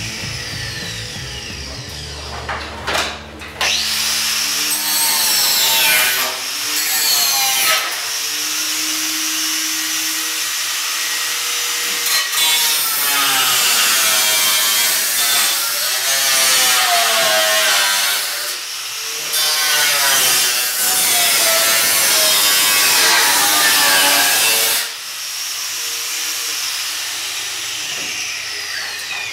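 Angle grinder with a cutting disc cutting through the old steel sheet metal of a Ford F100 cab, in long passes with its pitch wavering as the disc works the metal, easing off to quieter stretches near the start and end.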